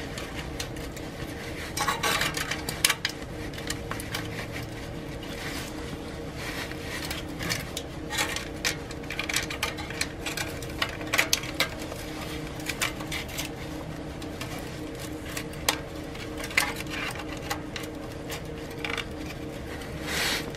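Stainless worm-drive hose clamps clinking and scraping against a thin sheet-metal stovepipe sleeve as they are slid over an exhaust pipe, in a string of irregular light metallic clicks. A steady low hum runs beneath.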